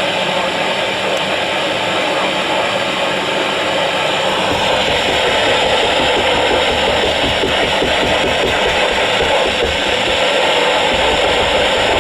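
Loud, steady static hiss from a WX-150 weather radio's speaker, the sound of a weak, poorly received NOAA Weather Radio signal.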